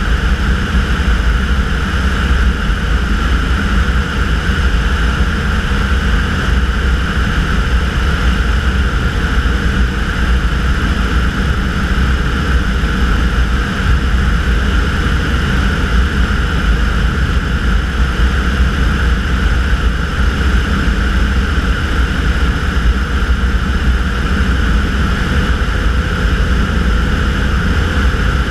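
Tanarg ultralight trike's engine and pusher propeller running steadily in cruise, a loud even drone with no change in power, heard from a camera mounted on the wing.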